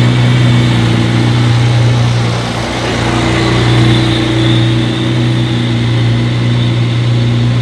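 Mercedes-AMG One's 1.6-litre V6 running at a steady idle as the car creeps past at walking pace: a steady low hum that holds one pitch, with no revving.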